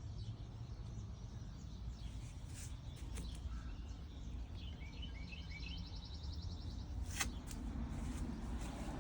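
Outdoor background noise with a low rumble; a bird chirps in a quick series and trills about five seconds in, and a single sharp click sounds about seven seconds in.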